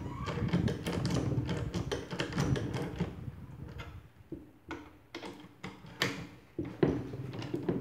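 Hand ratchet clicking as it turns the forcing screw of a coil spring compressor on a strut, tightening it to compress the spring. The clicks come thick and fast for the first few seconds, then turn into scattered clicks and knocks.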